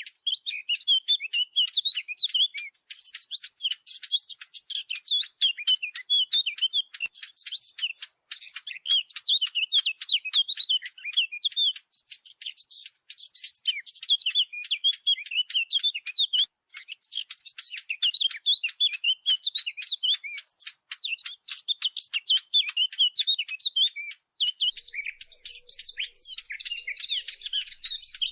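Fig bird (usfur al-tin, a small warbler) singing: a fast, continuous warbling chatter of quick high twittering notes and clicks, with only brief pauses between runs.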